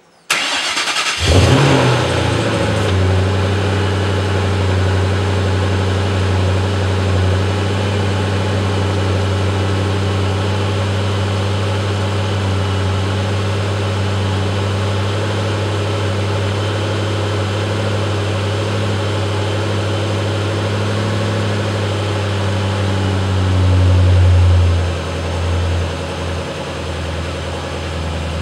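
2008 Shelby GT500's supercharged 5.4-litre V8 starting up through a 3-inch Bassani cat-back exhaust, catching with a brief flare, then idling steadily. Near the end the idle swells for a couple of seconds and then settles a little lower.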